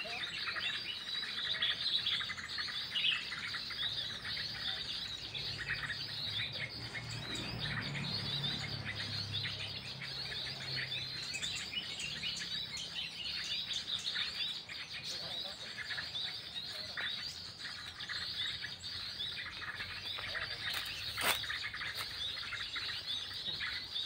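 Many small birds chirping and twittering in a dense, continuous high chorus. A faint low drone comes and goes about a third of the way in, and there is a single sharp click near the end.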